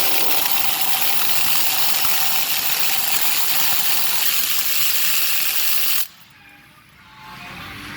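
Pneumatic needle gun (air needle scaler) hammering a fresh weld on a hardened-steel bucket cutting edge, a steady rapid rattle that stops about six seconds in. The peening is done to set the weld.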